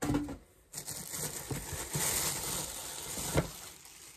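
Clear plastic packaging crinkling and rustling as it is handled and pulled off, with a sharp knock about three and a half seconds in.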